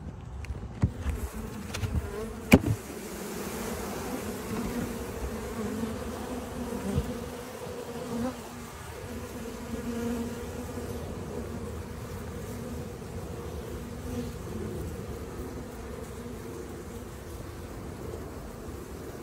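A colony of honey bees in an opened wooden hive, buzzing with a steady hum. A few sharp knocks come in the first few seconds, the loudest about two and a half seconds in.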